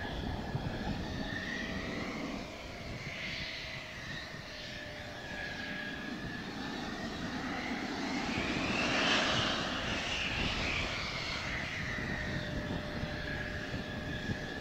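Mitsubishi F-2B's F110 turbofan whining at low power. About halfway through, the whine rises in pitch and grows louder, then falls back to its steady note. A low wind rumble lies underneath.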